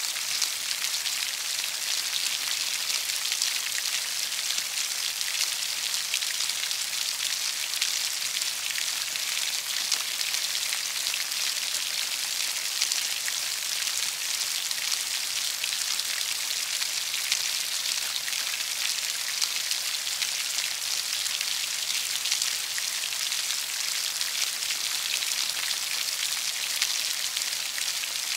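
Steady rain falling: an even, dense hiss of many drops, with now and then a single sharper drop tick standing out.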